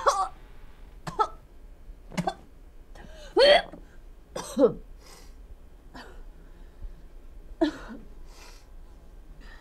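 A woman retching, gagging and coughing over a sink in short strained bursts, about seven times, loudest around the middle, as she brings up dark blood.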